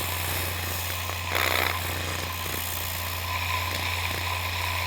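Compressed air hissing steadily from a Tornador air-blowing gun as it blows the water out of a wet polishing pad, with a louder surge about a second and a half in. A steady low hum runs underneath.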